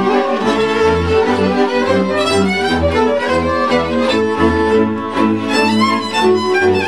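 Transylvanian village string band playing an învârtita dance tune: two fiddles bowing the melody in unison over the chords of the contra and a double bass pulsing on the beat, about two bass notes a second.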